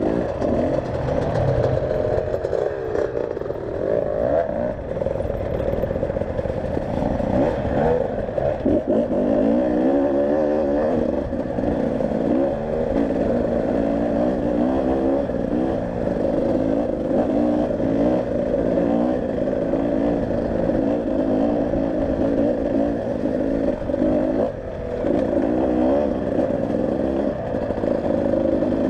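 Enduro motorcycle engine running under load, its revs rising and falling constantly as it is ridden off-road.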